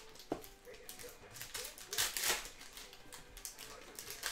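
Foil trading-card pack wrapper crinkling and tearing as it is opened, then the cards inside being slid and flipped through by hand. There are a few short crinkly bursts, the loudest about two seconds in.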